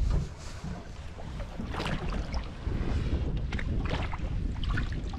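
Wind rumbling on the microphone and water sloshing around a small boat, with a few brief splashes, one as a landing net dips into the water near the end.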